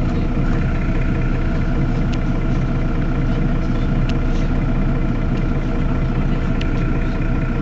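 Mercedes-Benz Citaro city bus's rear-mounted diesel engine idling steadily while the bus stands at a stop.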